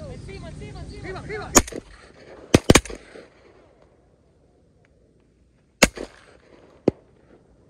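Shotgun blasts at ducks: about five sharp shots, one a second and a half in, a quick pair a second later, then two more spaced about a second apart near the end. They are preceded by a run of repeated calls.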